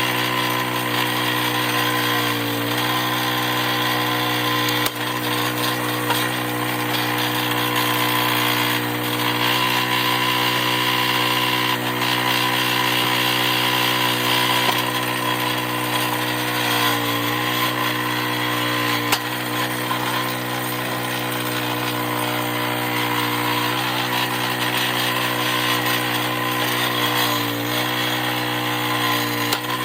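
Log splitter's small engine running steadily, its pitch dipping briefly about four times as it takes load from splitting.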